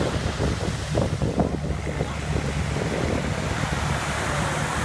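Small surf breaking and washing up on a sandy beach, with wind buffeting the microphone as a steady low rumble that gusts harder in the first couple of seconds.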